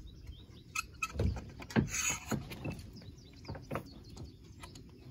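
Small Topper dinghy's mainsail being fastened to the boom by hand: scattered clicks and knocks of the fittings and brief rustles of the sail cloth.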